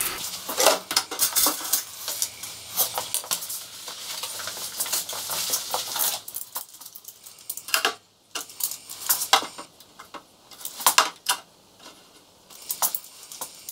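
Irregular clicks and knocks of hard plastic being handled: a plastic cutting board and a plastic enclosure box with a hinged lid, with a folding ruler handled near the end.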